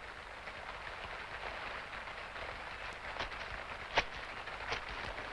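Three light footsteps under a second apart in the second half, over a steady hiss.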